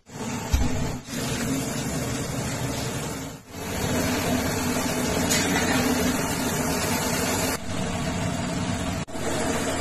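A steady mechanical roar with a low, even hum, like an engine or blower running. It breaks off for a moment three or four times.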